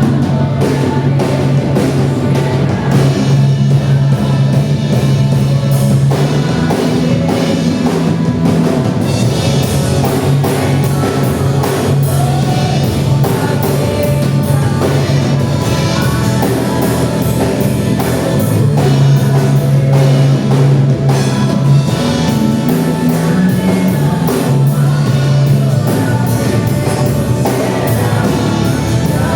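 Live worship band music with drum kit, bass and guitar playing a steady beat, with some singing.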